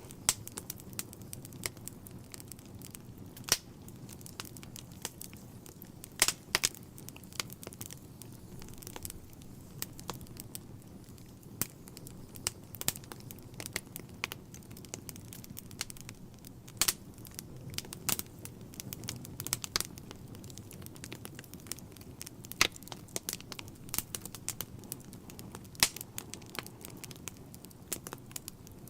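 Wood fire burning in a fireplace: irregular sharp crackles and pops from the burning logs, a few of them louder, over a steady low rumble of the flames.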